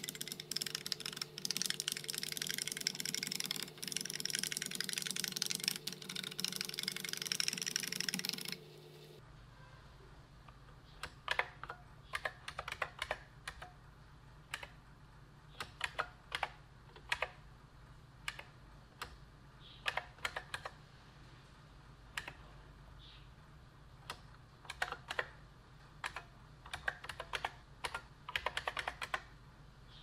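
IBM Model M buckling-spring keyboard being typed on. For about the first nine seconds there is a dense run of rapid key clicks over a steady hum. Then come bursts of separate keystrokes as words are typed.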